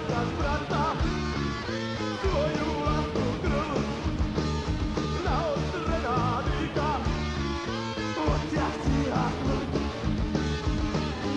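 Speed metal music: distorted electric guitars with a bending, wavering lead line over bass and a driving drum beat.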